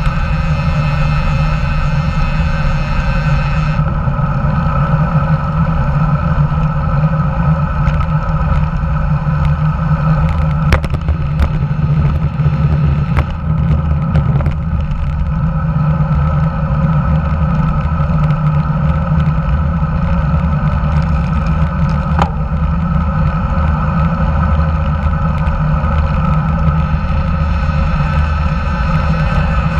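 Steady wind and road noise from a road bike moving along, picked up by a handlebar-mounted camera, with a few sharp clicks near the middle of the ride.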